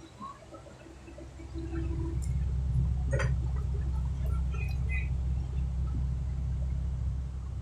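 A low engine rumble, which grows louder about two seconds in and then holds steady, with a sharp knock a little past the middle.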